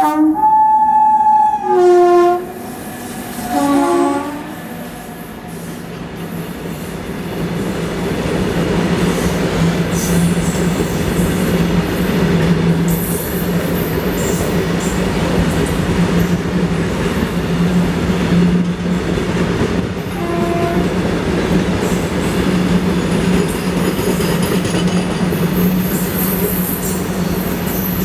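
Twin WAG7 electric locomotives sounding their horns: a long blast followed by two short ones, then a short toot about twenty seconds in. In between, the locomotives and a long train of loaded BOXN coal wagons roll past with a steady rumble and clatter of wheels on rail.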